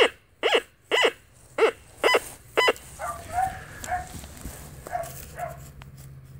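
White's Goldmaster V/SAT analog metal detector sounding its target tone about twice a second, each beep rising then falling in pitch as the coil is swept back and forth over a buried scrap of aluminum foil. The beeping stops about three seconds in, and fainter rustling and weaker chirps follow.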